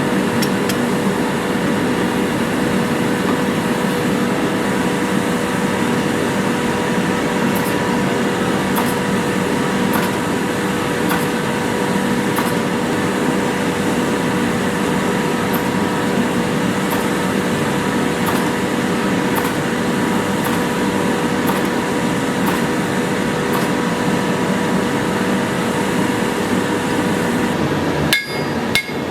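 A forge running with a steady roar and a constant hum. In the last second it cuts out and a few ringing hammer blows on hot steel at the anvil begin.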